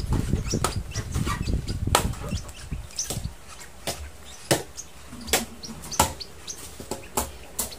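Young African lovebirds giving short, faint chirps while being hand-fed, with sharp clicks about every half second to second and a low rumble of handling noise that stops about three seconds in.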